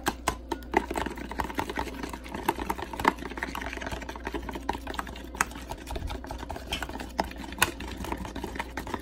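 Metal wire whisk beating an egg-and-mayonnaise batter in a plastic bowl: rapid, uneven clicking of the wires against the bowl, with the batter sloshing.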